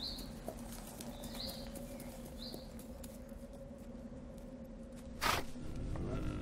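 Designed forest ambience: a steady low drone with three short high chirps about a second apart, then a sudden loud rush about five seconds in, followed by a low call rising in pitch near the end.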